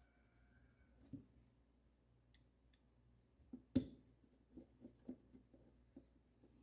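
Quiet handling of small parts and tools on a workbench: scattered light clicks and taps, with one sharper knock about four seconds in.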